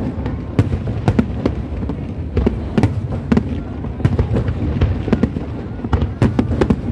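Aerial fireworks shells bursting in quick, irregular succession, several sharp bangs and crackles a second over a continuous low rumble.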